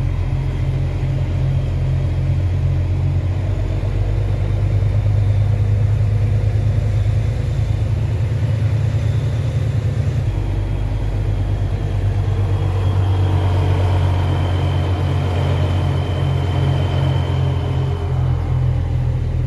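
Diesel engine of a Volvo NH 380 truck running steadily as the truck drives, heard from inside the cab as a deep, even rumble.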